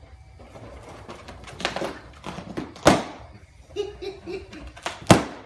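Latex party balloons being batted and bumped about by a small dog, with a string of sharp knocks and rubbing noises; the loudest come about three seconds in and near the end.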